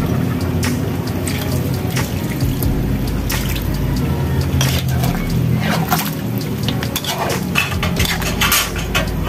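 Water poured into a steel wok of simmering pork and soy sauce, while a metal ladle scrapes and clinks against the wok as it stirs.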